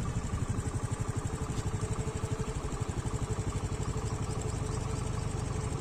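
A TVS scooter's small single-cylinder engine running steadily, with an even, rapid pulsing beat.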